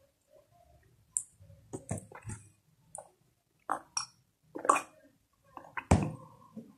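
A person drinking water from a glass: a run of short, separate sipping and swallowing sounds, the loudest near the end.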